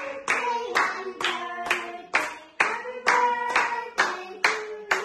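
A group of people clapping in steady time, about two claps a second, while singing a birthday song.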